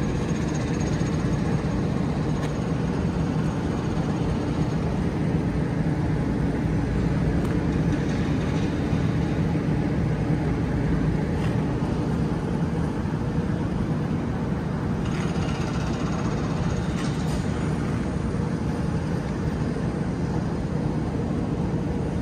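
Steady city background noise with a constant low hum and a few faint ticks.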